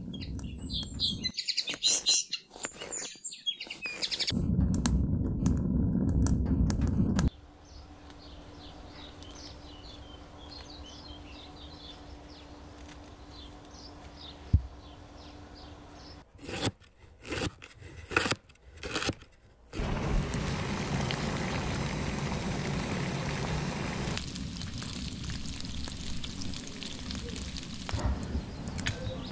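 Small birds chirping in the background through a string of separate short sounds. A loud low rushing noise runs for a few seconds and stops suddenly, several brief choppy bursts come later, and a steady hiss fills the last part.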